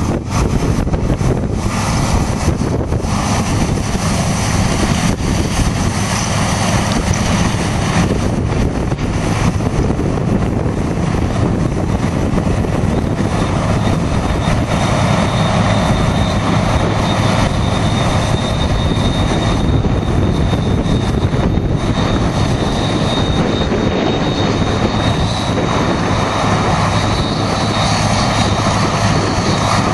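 Heavy farm machinery running steadily: a loud continuous engine and machine drone with faint steady high whining tones.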